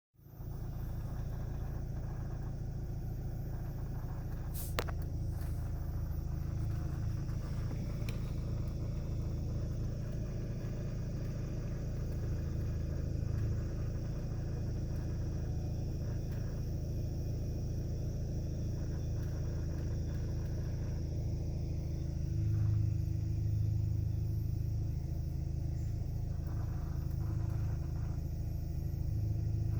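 Cabin noise of a running 2014 Hyundai Sonata 2.0T: a steady low rumble, with a single sharp click about five seconds in and a fainter one a few seconds later.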